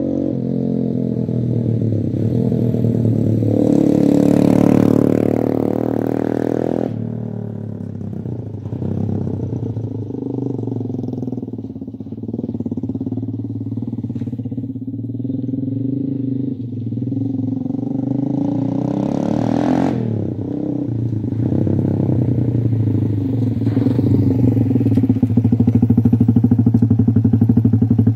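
Single-cylinder 150cc Appia Leyenda motorcycle engine running through a Paolucci stage 1 aftermarket exhaust. The throttle is opened twice, about four and nineteen seconds in, each time rising and then falling back off sharply. Between the revs the engine runs steadily, a little louder near the end.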